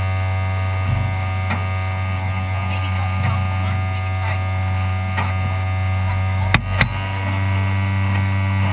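A steady low hum with many overtones, holding one pitch throughout, broken by two sharp knocks about six and a half seconds in.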